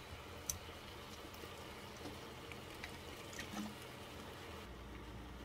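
Faint kitchen handling sounds: metal tongs clicking lightly against a stainless steel pot and ham cubes, a few scattered clicks over a steady low hum.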